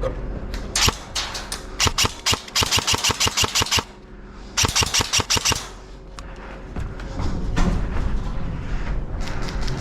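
Airsoft gun firing in rapid bursts of quick, sharp cracks: four bursts in the first six seconds, the longest over a second, and more shots near the end.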